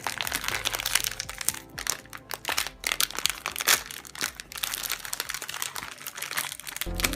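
Plastic snack packaging crinkling and crackling as it is handled and opened, in quick, irregular rustles.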